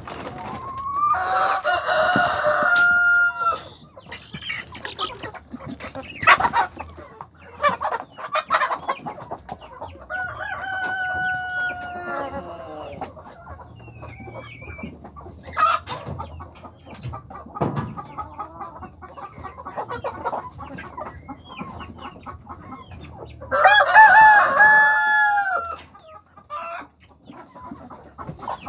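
Rooster crowing: a long, loud crow about a second in and another near the end, with a fainter crow midway, while hens cluck on and off throughout.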